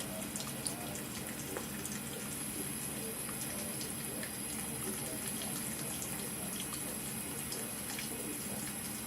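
Bathroom sink faucet running in a steady stream into the basin, with faint scattered ticks over the flow.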